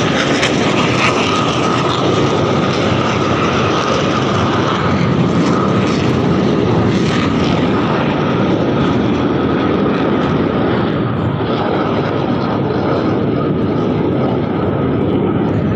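Jet aircraft engines running: a steady rush of noise with a high whine that fades out about twelve seconds in.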